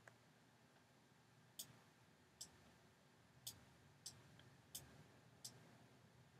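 Computer mouse clicks: about six faint, sharp clicks at irregular intervals over near silence, as parts are clicked and dragged on screen.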